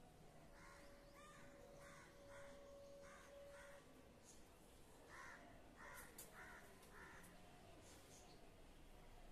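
A bird calling faintly in two runs of short repeated calls, about five and then four, with a faint steady tone under the first few seconds.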